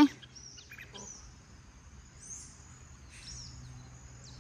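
Rural outdoor ambience: small birds chirping now and then in short high calls over a thin steady high tone and a faint low hum.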